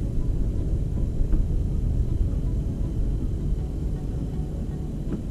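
Steady low rumble of wind buffeting the camera's microphone on open lake ice, with no distinct events.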